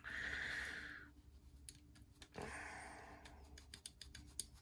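Faint, small light clicks of the parts of a disassembled CKF Satori folding knife being handled, starting about a second and a half in, with two soft hisses, one at the start and one about two and a half seconds in.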